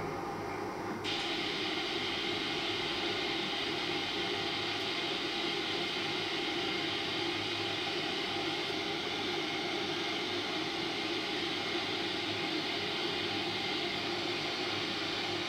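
The Marmore Falls' torrent: a steady, dense rush of falling water that grows fuller and brighter about a second in.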